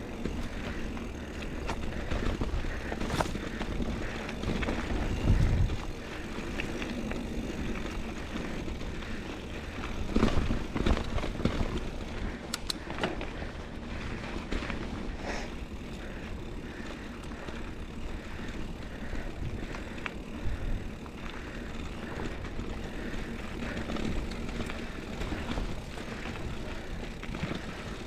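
Scott Spark 950 mountain bike on Maxxis Dissector tyres rolling over a dirt singletrack: a steady low rumble of tyres on dirt and air rushing past, with occasional clicks and rattles from the bike over bumps. The rumble grows louder about five seconds in and again around ten seconds.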